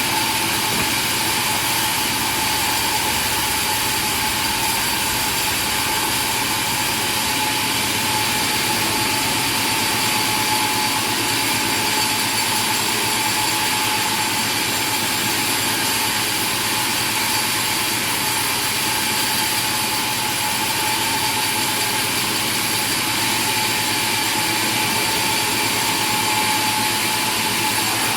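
A machine running steadily without change, with a constant high whine over a noisy hum.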